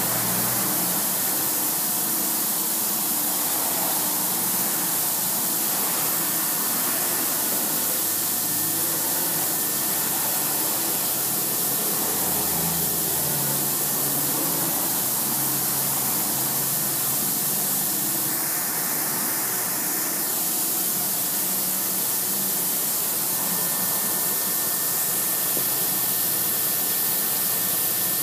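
Small CNC milling machine running a program: its servo-driven axes whir with low tones that keep changing pitch, under a steady high hiss. About two-thirds of the way through, a louder hiss lasts for about two seconds.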